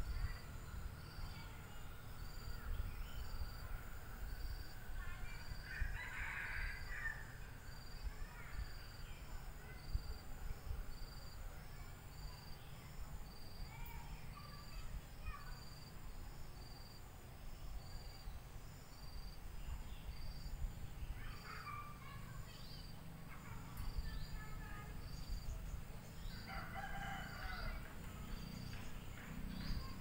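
Rooster crowing a few times, about 6, 21 and 27 seconds in, over steady cricket chirping that repeats about once a second.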